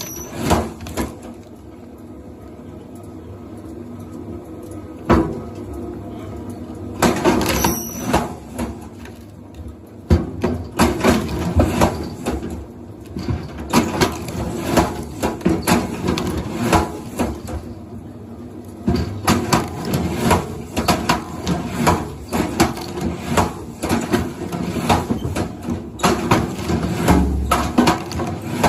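Irregular knocking and clattering of hard objects: a few knocks at first, then a dense, rapid run of them from about ten seconds in.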